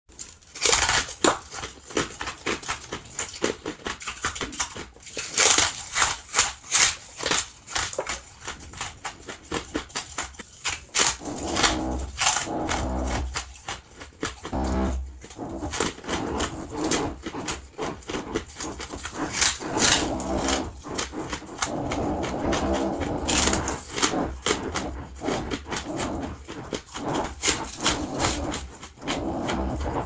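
Close-miked crunching and chewing of soft, fluffy freezer frost: a quick run of sharp crunches, with stretches of denser, continuous chewing.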